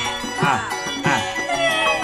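Javanese gamelan music accompanying a sinden song: struck metal-keyed instruments ring out in strokes about every half second over steady held tones, between the singer's vocal phrases.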